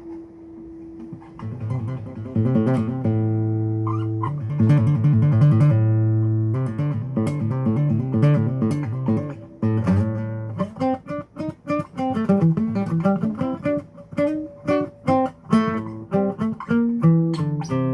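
Live guitar playing, held low notes and then a quicker run of separately picked notes over the last few seconds.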